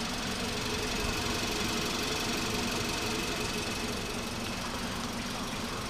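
VW Golf 1600 SE's engine idling steadily and quietly, a low even hum.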